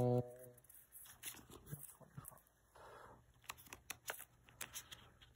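Paper savings-challenge envelopes being flipped through by hand in a plastic box: faint rustling and light clicks of paper edges.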